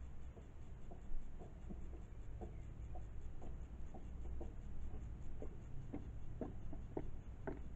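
High-heel footsteps clicking on wet pavement at a steady walking pace, about two steps a second, louder in the last couple of seconds.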